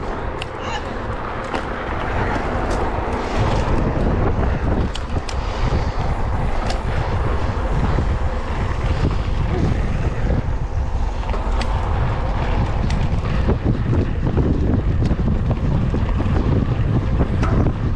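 Wind buffeting the microphone of a mountain bike rider's camera, with tyres rolling on a dirt road. The wind grows heavier about three seconds in as the bike picks up speed. Scattered light clicks run through it.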